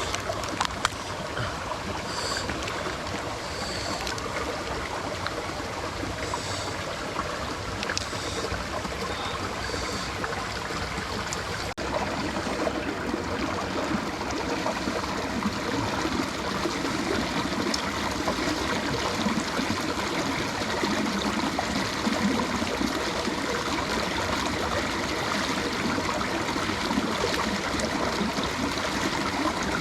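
Mountain stream water running steadily, a little louder after an abrupt change about twelve seconds in.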